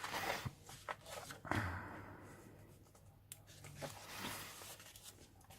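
Paper pages of a hardback book being turned and handled: faint rustling, with two short bursts near the start and about a second and a half in, and a few small clicks.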